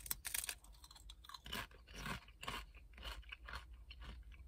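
Chewing a mouthful of thin, crisp tortilla chips: an uneven string of crunches, about two a second.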